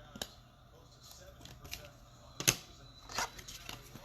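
Trading cards and packs being handled on a table: a few sharp taps and clicks, the loudest about two and a half seconds in, then a quick cluster of lighter clicks, over a steady low hum.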